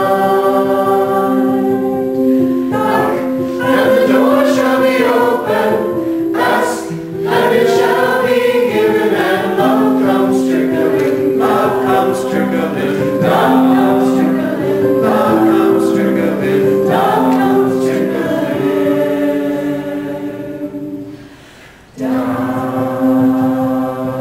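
A choir singing a hymn in slow, sustained chords that move step by step. Near the end it fades away, then cuts abruptly back in.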